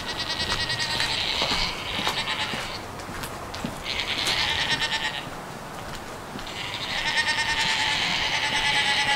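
Goat bleating: three long, drawn-out, wavering bleats, the middle one shorter.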